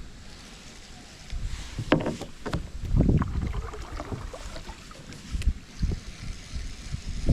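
Water sloshing and irregular knocks around a kayak in a creek, busiest about two to three seconds in.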